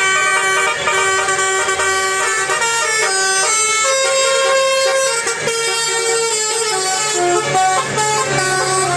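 Telolet Basuri musical bus horn playing a tune, its several horn tones switching quickly from note to note.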